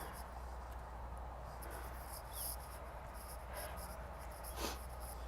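Insects chirping in a high, pulsing rhythm over a low steady hum, with one short sharper sound near the end.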